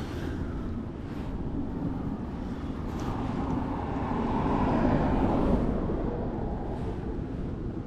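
A passing vehicle: a steady rumble that grows louder to a peak about five seconds in, then fades away.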